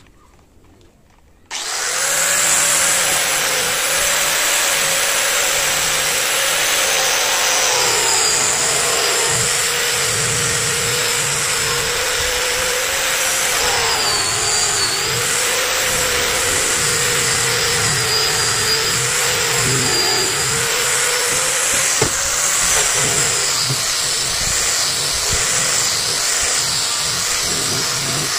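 Small handheld electric sander switched on about a second and a half in and run steadily against the steel barrel of an air rifle, sanding off rust; its whine sags in pitch briefly several times as it is pressed onto the metal.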